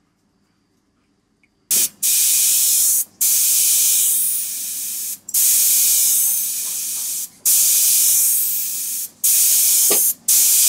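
Gravity-feed airbrush spraying paint in about six bursts of one to two seconds each, with brief breaks between them, starting nearly two seconds in.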